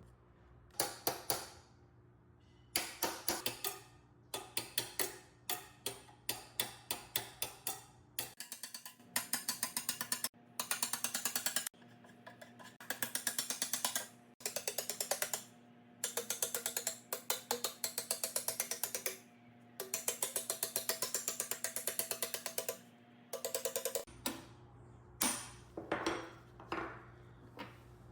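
Rapid mechanical ratcheting clicks, repeated in short bursts of about a second with brief pauses between them.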